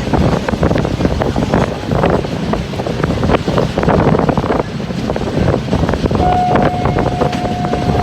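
Wind buffeting the microphone, loud, with constant crackling. Near the end a single steady whistle-like tone comes in and holds.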